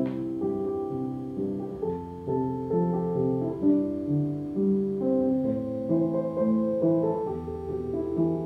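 Background piano music: a slow melody of held notes moving over sustained chords.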